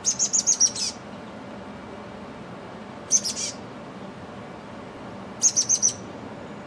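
Chestnut-backed chickadee calling: three short runs of rapid, high notes, a few seconds apart.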